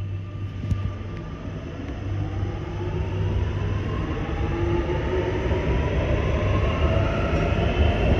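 Six-car electric metro train pulling away and picking up speed: its traction motors whine in several tones that climb steadily in pitch over a low rumble of wheels on rail, growing louder as it passes.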